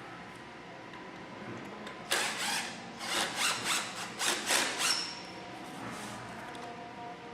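Cedar log dowel being forced into the pre-drilled hole in a chair arm, wood rubbing hard on wood: one rough scrape, then a run of about seven short grinding strokes that stops about five seconds in.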